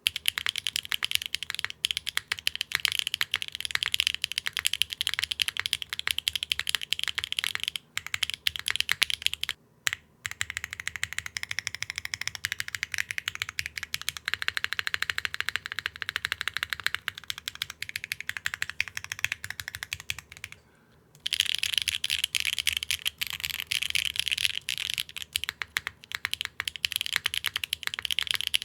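Continuous typing on a Neo60 Core mechanical keyboard with Akko Cilantro linear switches on a nylon plate, GMK keycaps and no case foam: a bright, high-pitched clack. The typing breaks off briefly about a third of the way in and for nearly a second about two-thirds through.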